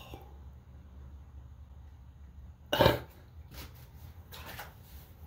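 A person's short, sharp cough about three seconds in, followed by a few fainter breathy sounds, over a low steady hum.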